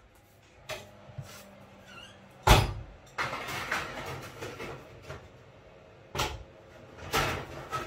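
Kitchen clatter: a series of knocks and clunks from baking trays and doors being handled, the loudest about two and a half seconds in.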